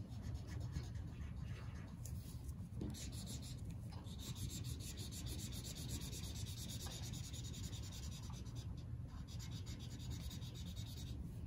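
Felt-tip marker rubbed rapidly back and forth on paper, colouring in a patch: a quiet, continuous run of short strokes.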